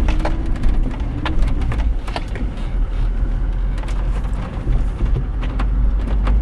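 A four-wheel drive's engine running low and steady as it crawls over a rough, rutted dirt track, with scattered knocks and rattles from the vehicle jolting over the bumps.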